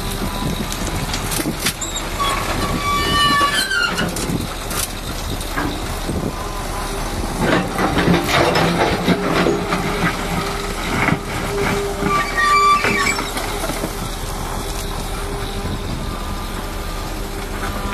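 O&K wheeled excavator's diesel engine running steadily as it digs and swings, with short metal squeals from the boom and bucket twice, about three seconds in and again around twelve seconds, and scattered knocks.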